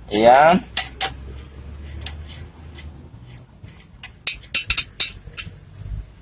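Irregular metallic clinks and taps of a ring spanner on the nut and bolt holding a Yamaha Vixion's swing arm as they are worked loose by hand.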